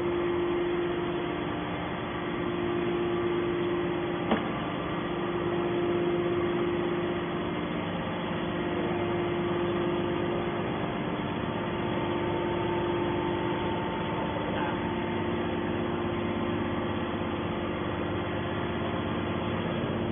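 Hydraulic scrap metal baler press running, its motor and pump giving a steady hum, with one sharp click about four seconds in.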